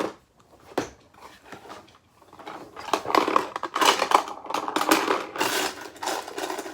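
Small hard parts clattering and clicking as they are handled: two single clicks at the start, then a dense run of rapid rattling from about two and a half seconds in.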